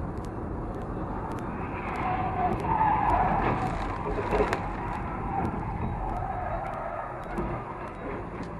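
Car tyres screeching in a long skid as vehicles swerve and lose control on a highway, over steady road rumble. A sharp knock about four and a half seconds in.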